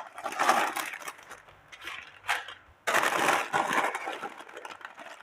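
Baking paper rustling and crinkling as a sheet of dough is rolled up on it, in uneven bursts.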